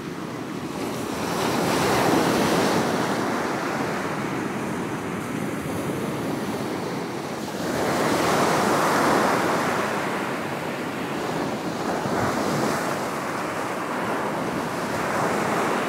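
Small sea waves breaking and washing up a shingle beach. The surf swells louder three times, about every six or seven seconds.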